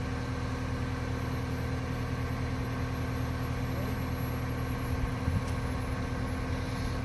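Engine of a large construction machine running steadily at idle, with a brief light knock about five and a half seconds in.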